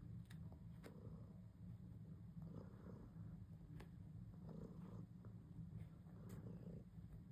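A cat purring: a low, steady rumble, with a few faint clicks.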